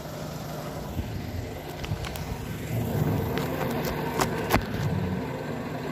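Wind noise on a phone's microphone, a steady low rush, with a few sharp knocks as the phone is handled.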